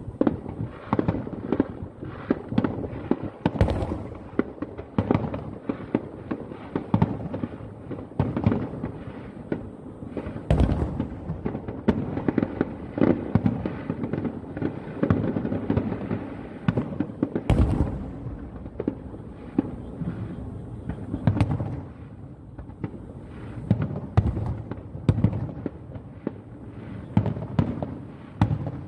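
Aerial firework shells bursting in quick succession, a steady run of booms and crackles, with a few sharper, louder bangs about three and a half, ten and a half, and seventeen and a half seconds in.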